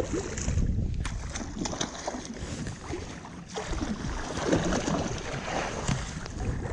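Water splashing and sloshing as a hooked salmon thrashes at the surface against a landing net, louder from about four seconds in, with wind rumbling on the microphone.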